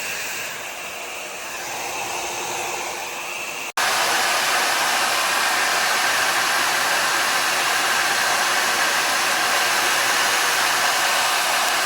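Slopehill Professional 1800 W ionic hair dryer running with a steady rush of blown air. About four seconds in the sound breaks off for a moment, then comes back louder and holds steady.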